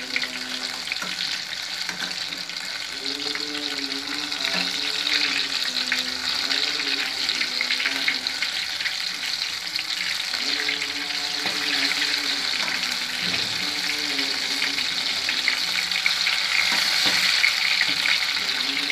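Grape pakoras in gram-flour batter deep-frying in hot oil in a metal kadhai, a steady sizzle, with a few light scrapes and clicks of a metal slotted spoon as they are turned.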